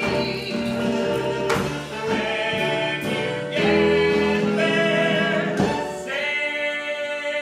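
Show tune sung by several voices in harmony over a musical accompaniment, mostly long held notes, with sharp accent hits about one and a half seconds in and again near six seconds.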